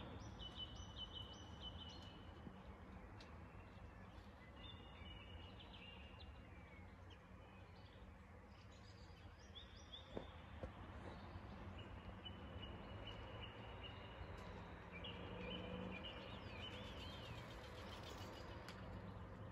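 Faint birds chirping: short high chirps in little runs, repeated throughout, over a low steady background hum.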